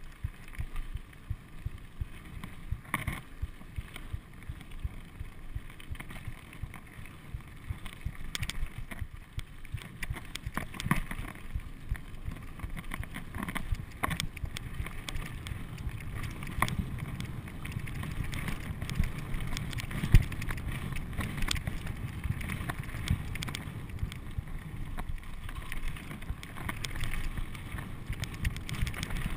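Mountain bike rolling over a rocky gravel trail: a steady low rumble from the tyres on the stones, with frequent clicks and rattles from the bike as it goes over rocks, and one sharp knock about twenty seconds in.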